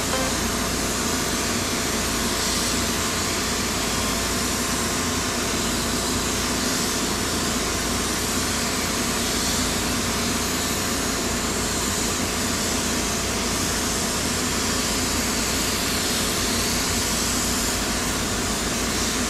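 Steady rushing hiss of compressed air through a gravity-feed spray gun as paint is sprayed, over the constant drone of an inflatable paint booth's blower fan.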